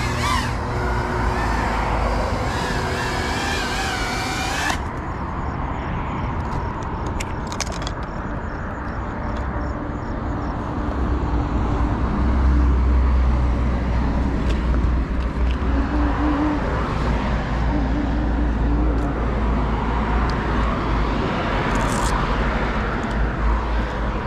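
Small FPV cinewhoop drone (GEPRC CineLog 35) with its motors whining and wavering in pitch as it flies. The whine cuts off suddenly about five seconds in as the drone is landed. After that there is a low outdoor rumble, loudest a little past the middle.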